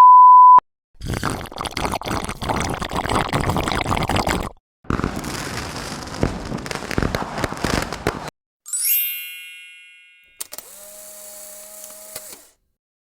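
A run of short stock sound effects played back to back with brief silences between: a loud, steady one-tone beep lasting about half a second, two stretches of dense noisy sound several seconds each, a bright ringing chime that fades out, and a last quieter clip with a held tone.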